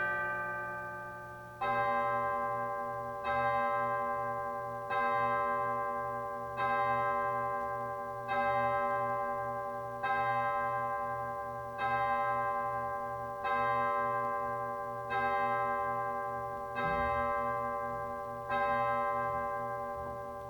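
Church bell chime tolling a single note eleven times, about every 1.7 seconds, each stroke ringing and dying away before the next.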